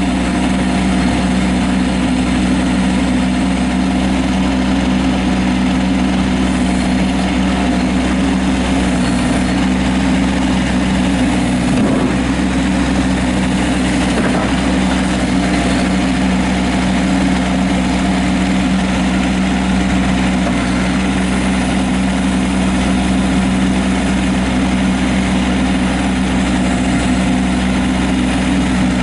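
Kubota B2301 compact tractor's diesel engine running steadily at a constant speed.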